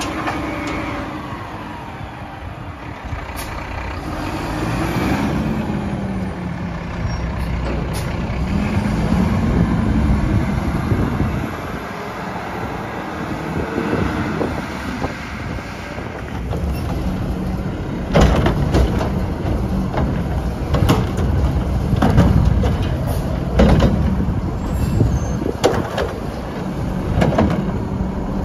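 Mack LR garbage truck with a Heil Odyssey automated body at work. The engine rises and falls in pitch under load through the first half. From about two-thirds of the way in come a series of loud knocks and bangs, typical of carts being lifted and emptied by the arm.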